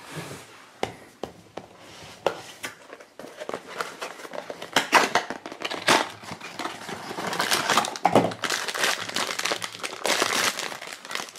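Cardboard blind box being opened, then the foil bag inside crinkled and torn open: scattered clicks and rustles at first, growing into busy crinkling and crackling about halfway through.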